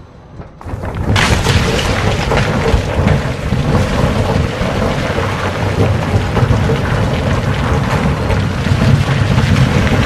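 Loud, steady roaring rush and rumble, like wind and thunder, that starts suddenly about a second in after a brief quiet, as a roller coaster train tips over the crest into its drop.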